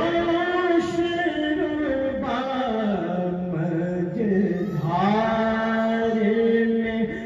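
Solo male voice reciting a naat (Islamic devotional poem), sung unaccompanied into a microphone, with long held notes that glide slowly between pitches.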